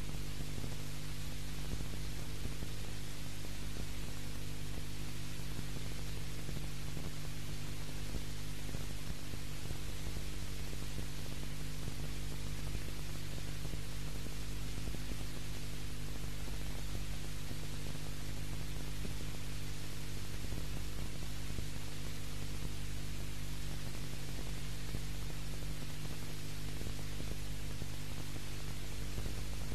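Steady electrical hum with a constant hiss and nothing else: the background noise of an old soundtrack recorded on VHS from a TV broadcast.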